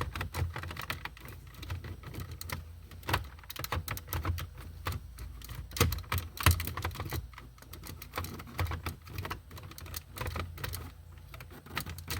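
Hard plastic dash trim clicking and knocking irregularly as a radio and climate-control console panel is pushed and worked into its dash opening, its retaining tabs held down. A couple of sharper knocks come about six seconds in.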